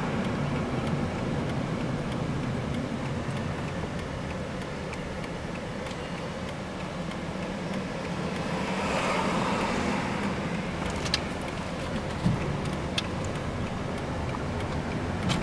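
Road noise inside a moving car: a steady low drone of engine and tyres that swells briefly about nine seconds in, with a few sharp clicks in the second half.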